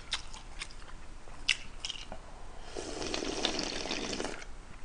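A person slurping kimchi jjigae broth straight from a metal pot for a couple of seconds in the second half, after a few faint mouth clicks.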